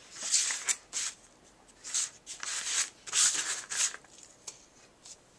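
A paper envelope being folded down and slid into place by hand on a cutting mat: several short rustling, rubbing strokes of paper, with a few light taps between them.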